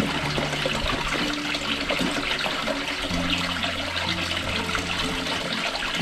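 Water pouring from a stone spout into a stone-lined tank, splashing steadily.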